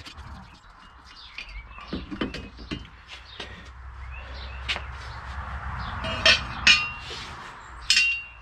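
Steel tools and car parts being handled and set down during a strut top mount strip-down: scattered light knocks, then three sharp ringing metal clinks in the last couple of seconds, over a low steady hum.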